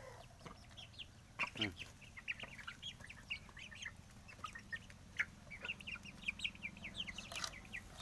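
Chickens clucking and calling in many short, quick high notes, several a second, over a steady low hum.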